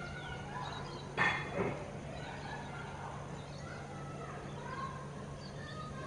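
Birds chirping, with many faint short calls and whistles over a steady low hum. Two louder, harsher sounds come in quick succession a little over a second in.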